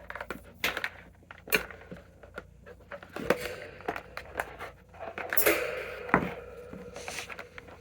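Handling noises: irregular clicks, knocks and rustling as a fan's power cord is pulled and placed, with a few louder knocks.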